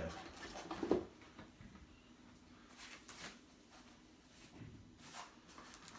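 Packaging being handled as a model-train starter set box is opened and its contents taken out: a sharp click about a second in, then a few faint clicks and rustles.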